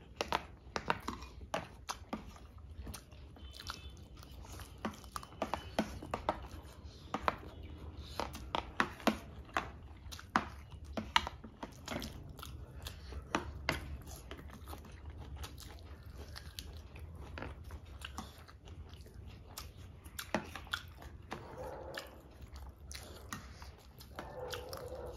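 Close-miked chewing and mouth sounds of people eating noodles and fried chicken, with many short sharp clicks, over a low steady hum.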